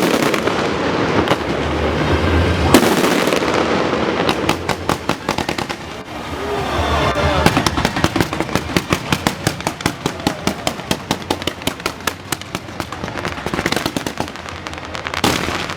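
Aerial fireworks bursting: a few heavy booms and long runs of rapid crackling pops, many a second, through the middle.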